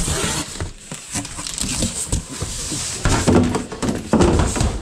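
Cardboard boxes and their contents being handled: rustling, crinkling and small knocks, then louder scraping and thumps near the end as a large cardboard moving box is shifted, its flaps and sides squeaking briefly.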